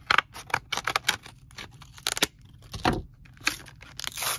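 Trading-card pack wrapper being torn open and crinkled by hand: a run of sharp crackles and clicks, a dull thump about three seconds in, and a longer tearing rip near the end.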